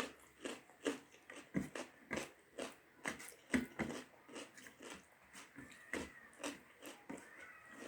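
A person chewing a mouthful of rice and dal, close to the microphone: a steady run of short smacking mouth clicks, about two to three a second.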